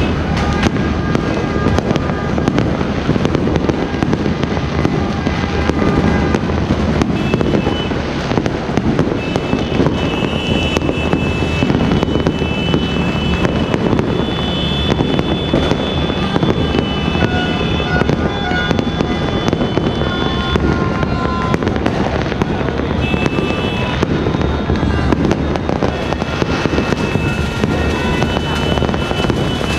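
Dense, continuous crackling and banging of many fireworks and firecrackers going off all around, with high steady tones coming and going over it.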